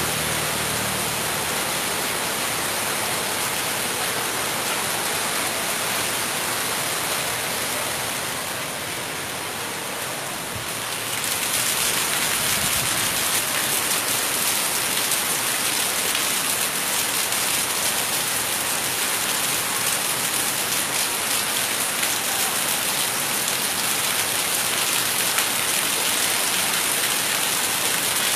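Heavy downpour: a steady, even hiss of rain pouring onto the ground and standing floodwater, growing louder and brighter about eleven seconds in.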